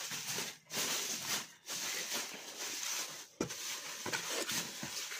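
Dry desert-cooler pad fibre rustling against cardboard as hands push and pack it into a box, in uneven stretches with brief pauses.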